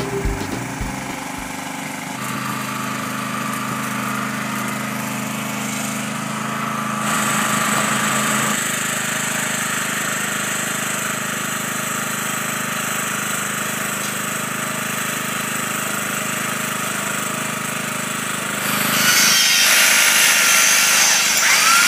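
Machinery running steadily, then a corded electric power tool working on a steel yard post, louder in the last few seconds.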